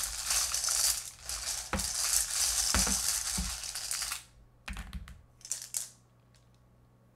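Small letter tiles rattling and clattering as a hand stirs them in a metal bowl. The steady rattle stops about four seconds in, followed by a few short clacks as tiles tumble out onto the table.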